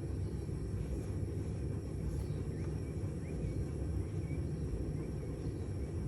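A steady low rumble, with a few short faint bird chirps over it.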